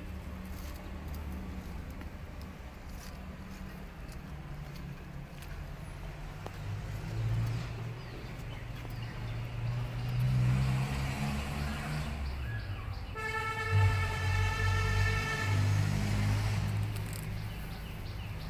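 Motor vehicle engine rumbling, swelling louder for a few seconds midway, with a long steady horn blast about two-thirds through that holds one pitch for about three seconds.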